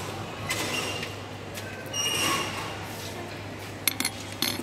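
Steady low hum with a few sharp clicks close together near the end, as a small clear plastic box of stones is handled at the jeweller's bench.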